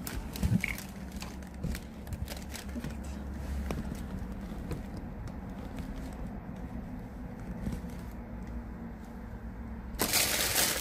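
Handling noise of snack packages and things on the table close to the microphone: scattered clicks and knocks over a steady low hum, then a loud burst of plastic bag rustling near the end.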